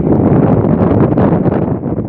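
Strong wind buffeting the microphone: a loud, continuous rumble of gusts.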